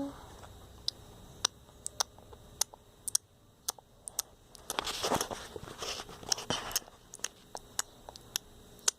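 Scattered light clicks and taps of small plastic toys and play dough being handled, with a stretch of soft rustling about five to seven seconds in.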